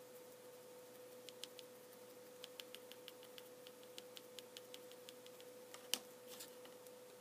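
Faint, irregular ticks of a paintbrush tip dabbing paint onto a gritty, sand-textured miniature base, with one sharper click just before six seconds, over a faint steady hum.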